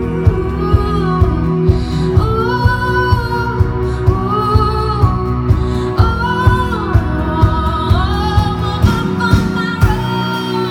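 A woman singing live, holding long melodic lines, over a strummed acoustic guitar with a steady beat of about two strokes a second.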